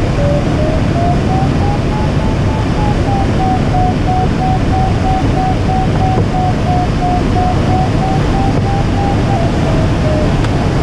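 Steady rush of air past a DG-800 glider's canopy, heard in the cockpit, with an electronic variometer beeping in quick, evenly spaced tones. The beeps rise in pitch about a second in, hold, and drop near the end, signalling climb in a thermal.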